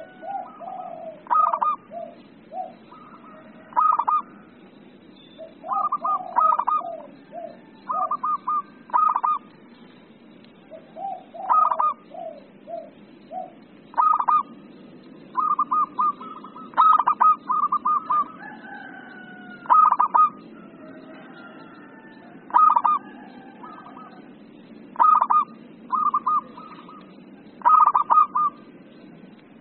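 Local-strain zebra dove (perkutut) singing: repeated short phrases of rapid staccato cooing notes, one every one to three seconds, some trailing into a run of lower notes.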